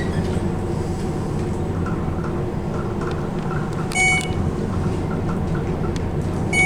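Inside a modernized passenger elevator car during its ride up: a steady low rumble and hum of travel. Two short, bright electronic chime tones sound, one about four seconds in and one near the end.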